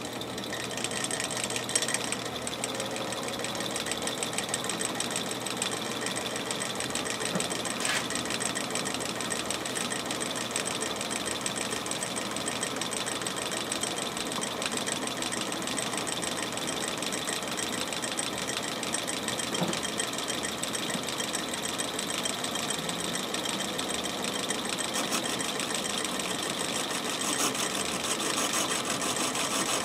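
Atlas 618 bench lathe running steadily under its motor and belt drive, the four-jaw chuck spinning on the spindle.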